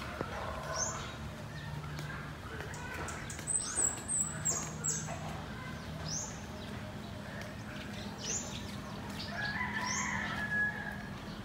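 Birds chirping outdoors: short high calls that slide down in pitch, several in quick succession about four seconds in and more spread out after.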